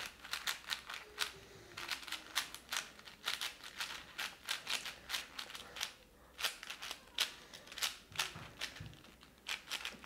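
Plastic layers of a stickerless 4x4 Rubik's cube clicking as they are turned quickly to scramble it: an irregular run of sharp clicks, several a second.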